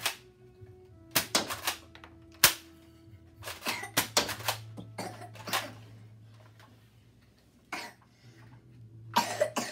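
Nerf blaster being handled, primed and shot: a series of sharp plastic clacks and snaps in clusters, the loudest a single snap about two and a half seconds in.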